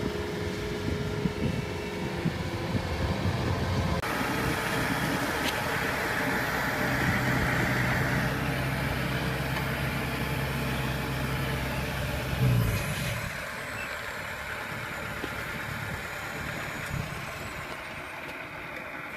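Kubota combine harvester's diesel engine running steadily, with an abrupt change in the sound about four seconds in. A little past the middle the low engine note falls away and it grows quieter.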